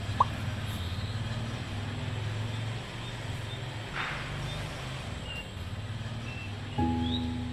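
A steady low rumble like distant vehicle traffic, with a short squeak at the start, a brief hiss in the middle and a few faint high chirps. Music with a held chord comes in near the end.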